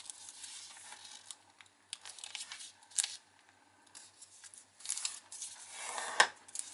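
Origami paper being folded and creased by hand: rustling and crinkling as the edge is brought to the centre and fingers slide along to press the fold flat. A few short sharp ticks come through, the loudest about six seconds in.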